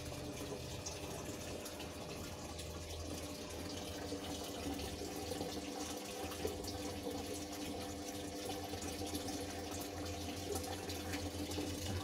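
Polytron single-tub automatic washing machine filling with water: a steady rush of water running into the tub over a steady low hum.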